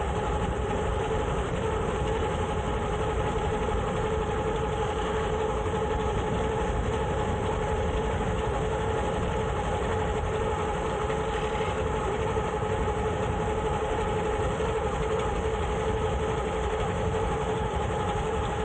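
A vehicle engine running steadily at one unchanging pitch over a low rumble.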